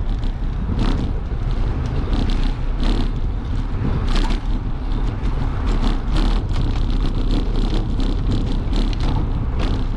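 Bicycle clattering over a rough, broken-up paved path, irregular ticks and rattles over a steady low rumble of wind and road traffic.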